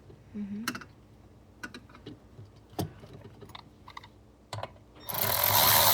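Scattered light clicks and knocks of seatbelt retractor parts and plastic trim being handled. About five seconds in they give way to a loud, continuous scraping rattle.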